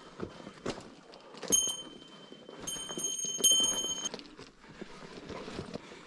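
Hiking boots stepping on loose, crumbly rock and gravel, an uneven run of crunches and knocks. A high ringing tone sounds briefly about a second and a half in, then again for a longer stretch around the middle.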